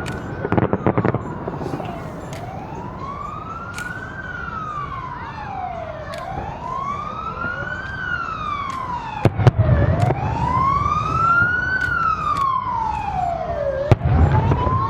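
Emergency-vehicle siren wailing, sliding slowly up and down in pitch about once every four seconds, over the rumble and crackle of fireworks. There is a cluster of firework bangs about a second in, and loud bangs a little past the middle and near the end.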